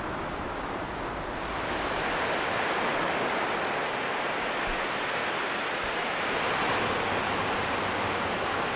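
Ocean surf washing on the beach: a steady rushing noise that swells a little about a second and a half in.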